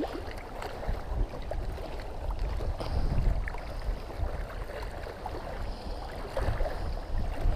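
Strong wind blowing across the microphone: a steady rushing noise with a low rumbling buffet, and a few faint ticks.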